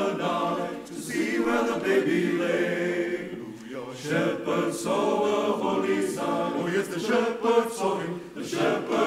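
Male voice choir singing a cappella.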